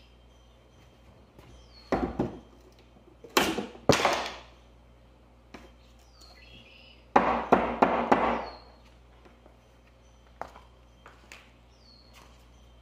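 Claw hammer striking the wooden mirror frame in short clusters of sharp knocks, the heaviest run of blows about seven seconds in, with a few lighter taps near the end, as the frame's add-on attachments are knocked loose.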